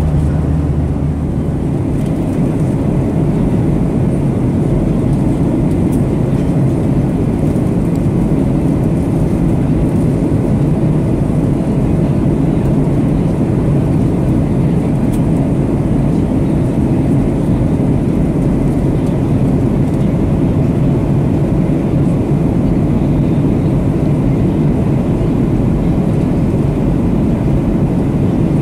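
Steady cabin noise of a Boeing 737-800 in cruise: the rush of air over the fuselage and the drone of its CFM56-7B turbofans. A low hum beneath it drops out about two seconds in.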